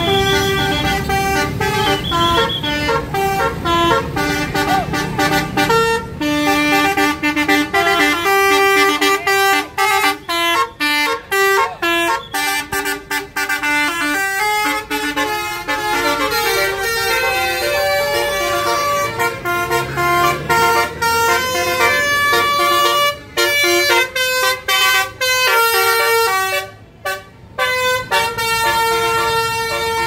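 Tour buses' multi-tone 'basuri' telolet air horns playing tunes: loud runs of steady notes that step from pitch to pitch, several horns overlapping, with a short break near the end.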